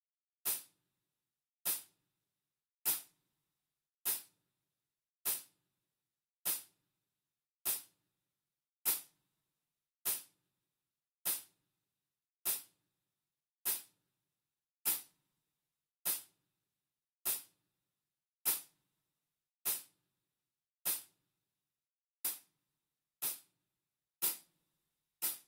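Metronome click track ticking evenly, one short click about every 1.2 seconds, the last few coming about a second apart.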